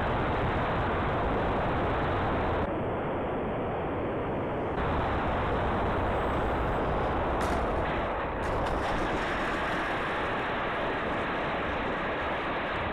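Onboard microphone on an RC model plane picking up a loud, steady rushing noise of wind buffeting and the electric motor and propeller as the 3D-printed Cessna 152 comes in low and rolls along the runway. A couple of short knocks come about seven and eight seconds in.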